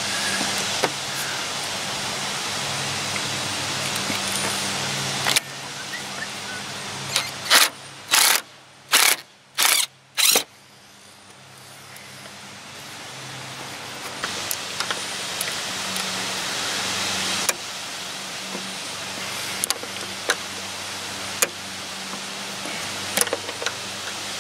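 Cordless drill driving screws into an RV's trim strip, running in about five short bursts between roughly seven and ten seconds in, over a steady background hiss.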